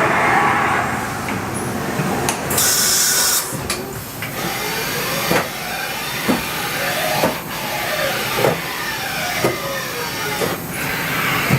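Haas VF-2 vertical machining center running. A brief hiss of air comes about three seconds in. After that its motors whine up and down over and over, with a knock roughly once a second as the moves change.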